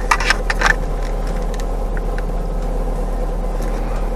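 Car engine idling, heard from inside the cabin as a steady low hum, with a few short clicks in the first second.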